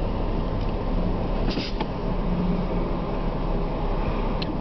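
Steady low rumble of a diesel freight locomotive and its wood chip train, heard from inside a car, with a couple of faint clicks.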